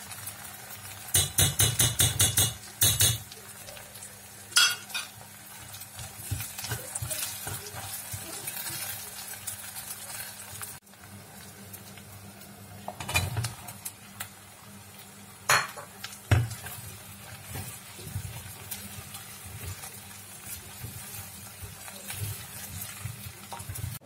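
Chopped onion, carrot and potato sizzling steadily as they fry in a stainless steel pot. A quick run of spoon strokes clinks against the pot near the start, and a few single knocks come in the second half as more vegetables go in.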